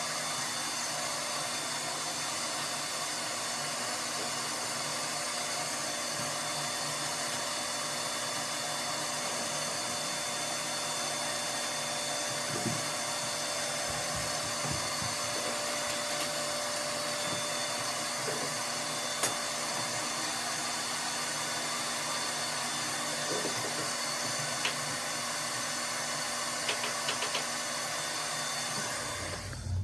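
Soot vacuum motor running steadily, a steady rush with a high whine, used while cleaning soot from the boiler; a few faint knocks sound over it, and it shuts off near the end.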